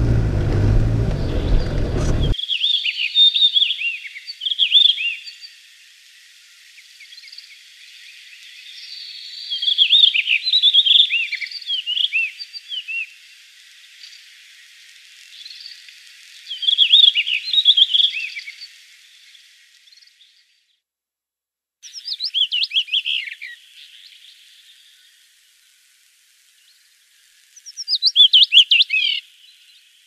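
A songbird singing in short phrases of quick high chirping notes, five or so phrases separated by pauses. A low rumbling noise at the start cuts off abruptly about two seconds in.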